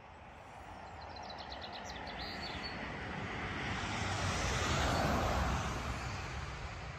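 A vehicle passing by: its broad rushing noise swells gradually to a peak about five seconds in, then fades.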